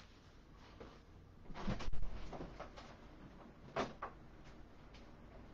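A person getting up from a desk and moving off: a muffled bump and shuffling about a second and a half in, then a single sharp click near four seconds.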